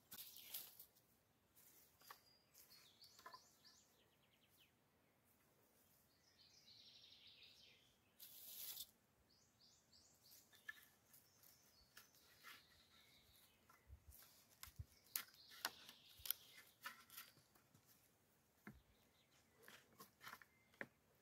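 Faint knocks, clicks and scraping of wooden sticks being handled and set down on leaf litter, with a longer rustling scrape about seven seconds in. Small birds chirp in short quick runs now and then.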